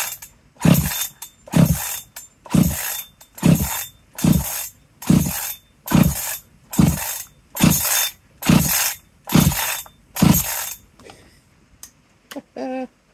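Husqvarna 385XP two-stroke chainsaw being pull-started: about a dozen hard pulls on the recoil starter cord in a steady rhythm, a little faster than one a second. Each pull cranks the engine with a rasp of cord and pawls, but it never fires. The owner takes it to be flooded from too much throttle at the start.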